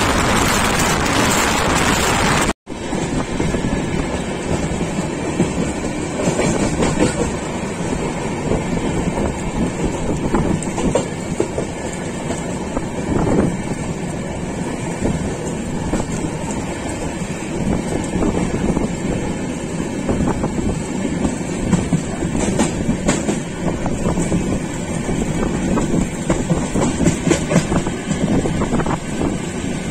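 A steady rushing noise cuts off abruptly a couple of seconds in. Then the Coromandel Express passenger train running on, its wheels rumbling with irregular clicks and clacks over the track.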